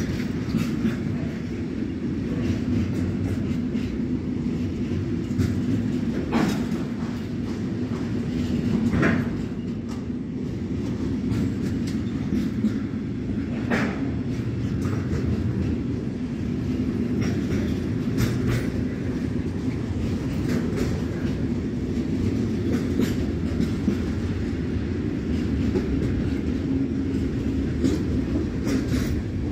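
Intermodal freight train of semi-trailers on pocket wagons rolling steadily past: a continuous rumble of wheels on rail with a steady hum, and a few sharp wheel clacks along the way.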